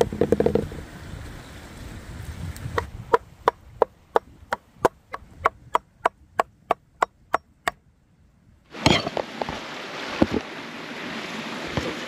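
Cherry tomatoes dropping and bouncing on a wooden cutting board, then a large knife chopping through them against the board in a steady rhythm of about three strokes a second. Near the end the chopping stops and a steady hiss takes over, with a few knocks.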